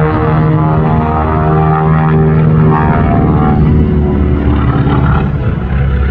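Beechcraft Model 18's twin Pratt & Whitney R-985 radial engines and propellers running hard through a low aerobatic pass, a loud steady drone whose pitch falls slightly as it goes by.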